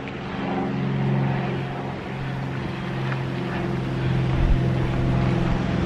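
Steady low hum of a motor vehicle's engine running, with several even tones held throughout, and a brief low thump about four and a half seconds in.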